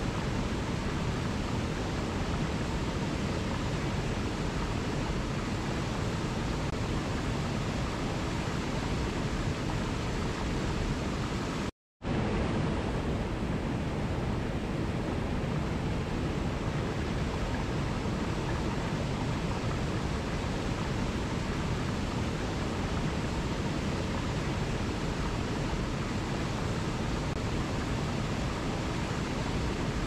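Waterfall rushing in a steady, even roar of falling water. The sound cuts out completely for a split second about twelve seconds in, then resumes unchanged.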